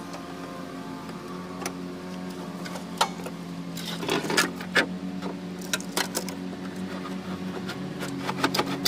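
Scattered clinks and knocks of metal exhaust parts, the manifold and its heat shield, being handled in a car's engine bay, over a steady mechanical hum.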